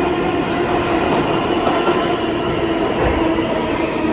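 New York City Subway R160A-2 train running at a steady pace: continuous rumbling wheel-on-rail noise with steady humming tones from the car's equipment.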